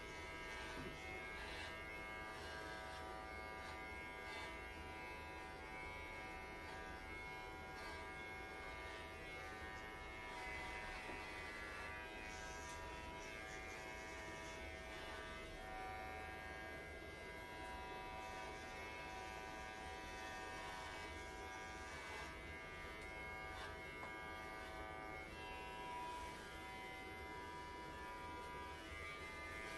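Electric pet clippers buzzing steadily as they shave a dog's coat down close to the skin.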